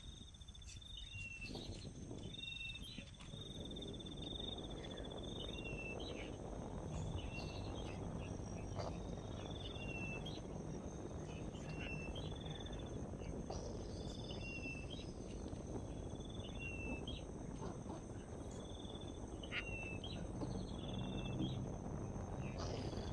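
Steady high-pitched insect chirring, like crickets, with a short call repeating every second or so: a brief trill followed by a lower falling note. A low steady rumble of outdoor background noise runs underneath.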